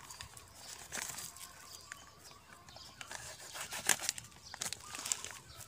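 A knife blade cutting and scraping at the plastic wrapping around a potted sapling's stem and bag: scattered small clicks and plastic crinkling, busier in the second half, with one sharper click about four seconds in.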